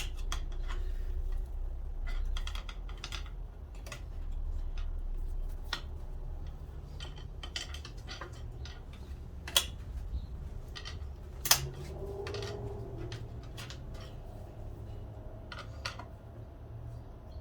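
Scattered light metallic clicks and taps of hand tools working at a large retainer clip on a transmission, with two sharper clicks near the middle, over a low steady rumble.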